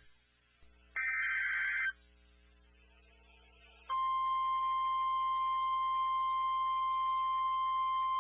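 Emergency Alert System SAME header: a buzzy, screechy digital data burst about a second in, lasting about a second. About four seconds in, the steady single-pitch high attention tone of the tornado warning alert starts and holds.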